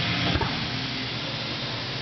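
Automated cylinder head gauging station running, giving a steady hiss of machine and air noise, with one short knock about half a second in.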